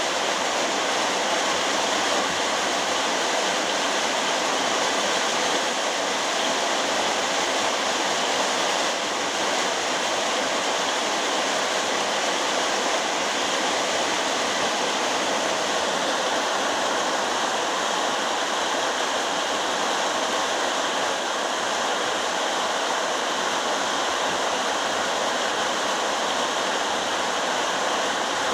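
Very heavy rain pouring down in a steady, dense hiss, with no thunder or other events.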